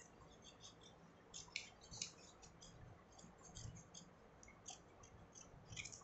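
Scissors cutting a small circle out of thin paper: a string of quiet, irregular snips, some close together, with pauses between them.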